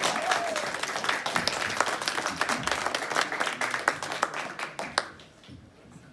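Audience applauding, the claps thinning out and dying away about five seconds in.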